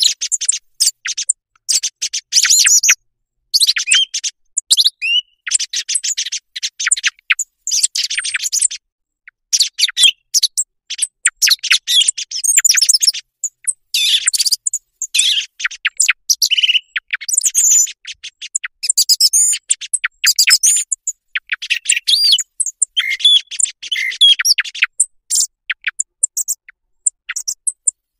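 Song thrush song from a hunting lure recording: phrases of rapid, high chirps and clicking notes, separated by short pauses.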